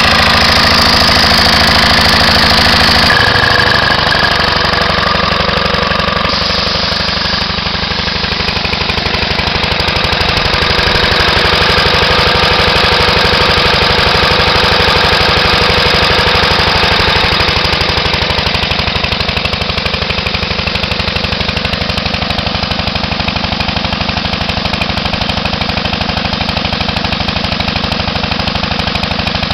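Briggs & Stratton Model Q single-cylinder engine running steadily at raised throttle, driving a 1928 Lindsay portable air compressor that is pumping air with its unloader valve closed. There is a rapid, even beat, and the tone changes about three seconds in.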